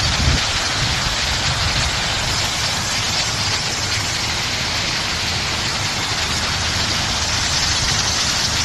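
Water pouring over a concrete dam spillway and crashing onto the rocks below: a steady, loud rushing of falling water.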